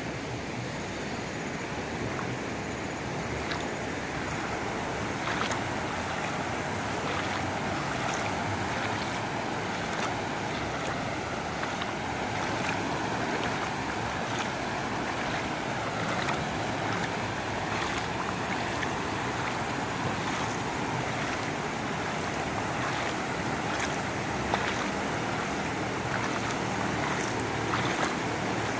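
Steady rushing of a muddy river in flood, with scattered faint clicks through it.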